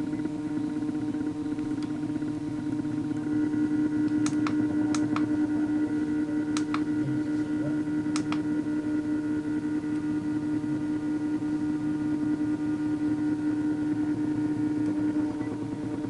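Stepper-motor-driven peristaltic pump running with a steady whine, getting stronger a few seconds in, while it pumps peanut butter. A few sharp clicks sound between about four and eight seconds in.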